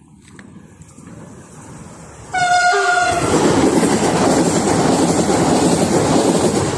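A train approaching with a rising rumble, then a short blast of its horn about two seconds in, followed by the loud rush and rattle of the train passing close by.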